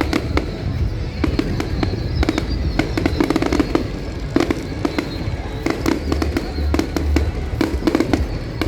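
Fireworks display: a rapid, irregular string of sharp bangs and crackling pops from bursting shells, with deeper booms underneath.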